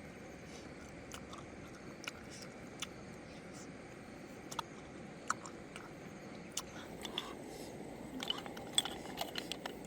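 A person eating cooked snails: chewing with scattered small clicks and crunches, coming closer together near the end, over a steady background hiss.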